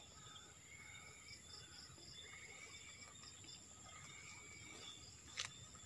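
Near silence: faint outdoor ambience with insects chirping, including a short run of quick high chirps between one and two seconds in, and a few faint distant calls. A single short click comes about five seconds in.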